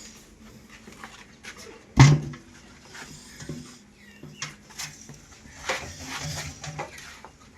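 A short, loud animal call about two seconds in, among scattered knocks and clatter.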